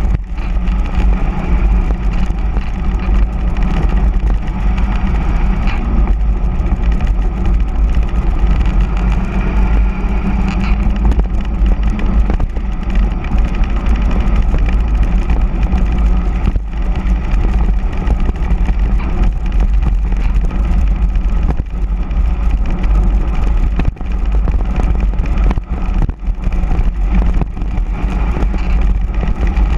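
Loud, steady rush of wind buffeting the microphone of a handlebar-mounted camera on a mountain bike descending fast, mixed with the rolling noise of its hard-inflated all-terrain tyres on asphalt.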